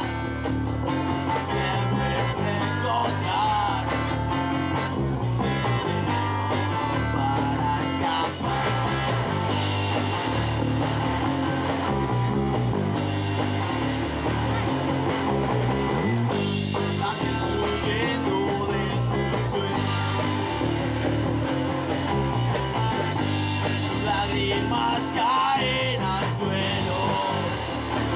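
Music with singing and guitar over a steady, repeating bass beat.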